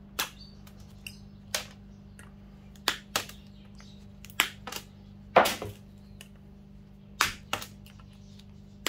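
Hand-held side cutters snipping the metal pins off mains plugs: about ten sharp snaps at irregular intervals, some in quick pairs, the loudest about halfway through.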